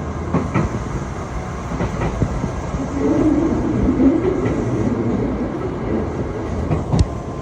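Train running along the track: a steady rumble with the clicks of wheels over rail joints. The rumble swells louder for about a second and a half three seconds in, and there is a sharp click near the end.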